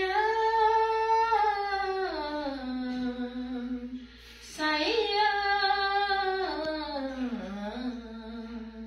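A voice humming a slow tune in two long phrases. Each phrase is held high and then steps down in pitch; the second begins about halfway through.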